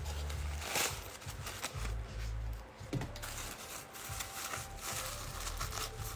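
Packaging and parts being handled: irregular rustling, light clicks and soft knocks, with some low rumble.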